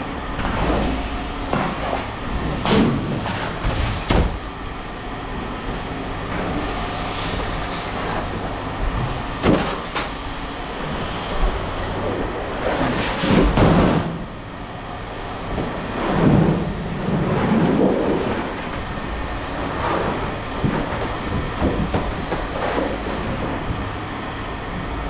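Scrap metal pieces clanking and knocking as they are handled and sorted, over a steady low hum.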